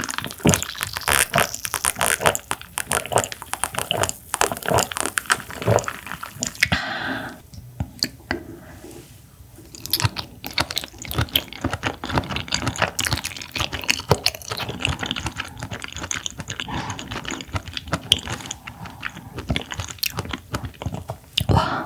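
Close-miked chewing of raw clam sashimi: wet, crunchy mouth sounds with many small clicks, easing off for a few seconds about a third of the way through.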